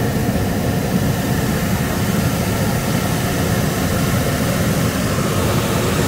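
Hot-air balloon's propane burner firing into the envelope: a loud, steady roar.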